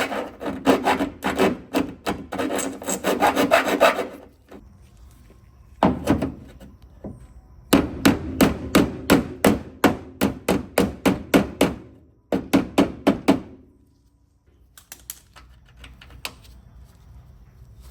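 Hand file stroking quickly over the steel around a freshly welded captive nut, then runs of quick, evenly spaced hammer blows, about three a second, on the distorted sheet metal, each run lasting a few seconds, with a fainter run near the end.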